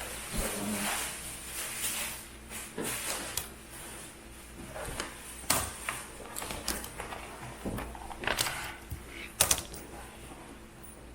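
Scattered knocks, clicks and rustling from household things being handled and set down.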